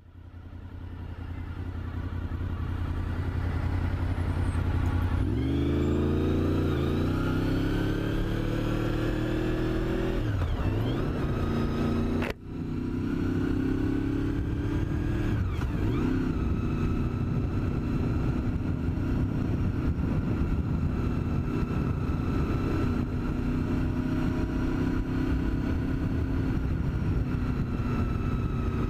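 Sports bike engine running under way, its note rising as it accelerates about five seconds in, then holding steady with small rises and falls. There is a brief sharp break in the sound a little before the halfway point.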